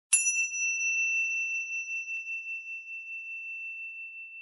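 A high-pitched meditation chime struck once, closing the practice period. Its higher overtones die away within the first second, and one clear tone rings on, fading slowly with a gentle pulsing.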